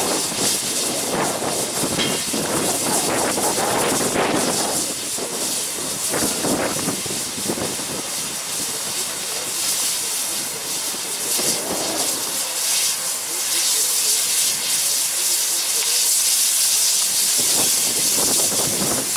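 Steady loud hiss of steam escaping from the steam locomotive LMS Jubilee 45596 Bahamas, with an uneven lower rush swelling and fading several times underneath.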